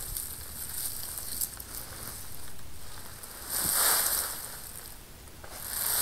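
Soil and sweet potato vines spilling from an upturned fabric grow bag onto a plastic tarp: rustling and crackling, with a loud burst about four seconds in and another near the end as the bag is lifted off.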